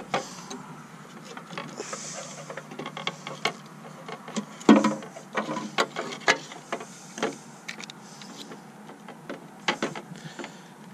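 Plastic wiring connectors of an LED tail light being handled and pushed together onto the Jeep's harness plug: scattered sharp plastic clicks and light rattling, the loudest click a little under five seconds in.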